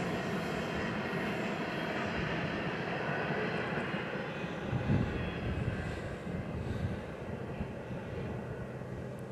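BNSF freight train rumbling along the track, the sound slowly fading as it moves away.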